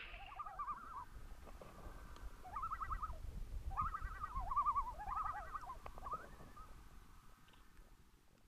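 Common loons giving their tremolo call: a run of short, rapidly quavering phrases, repeated about half a dozen times, stopping about six seconds in.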